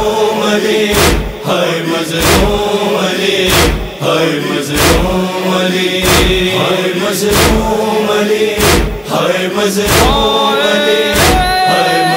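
Male voices holding a sustained, wordless mourning chant, over matam chest-beating thumps about every 1.2 seconds that keep the noha's beat.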